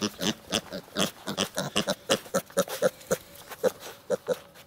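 Small pig grunting in quick, short grunts, about four a second.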